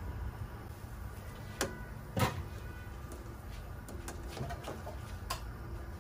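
Low steady rumble of a gas burner under a pot of boiling water, with a few sharp metal clinks as the pot lid comes off and a wire noodle basket is set into the pot, the loudest about two seconds in.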